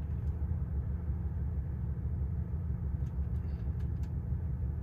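Steady low rumble of a 1989 Cadillac's V8 idling, heard inside the cabin, with the air-conditioning blower running. A few faint clicks come about three seconds in as the climate-control buttons are pressed.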